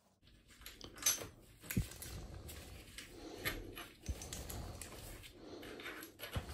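Light, irregular metal clicks and knocks of a socket wrench and loosened bolts being handled at a dirt bike's handlebar clamp, with soft rustling in between.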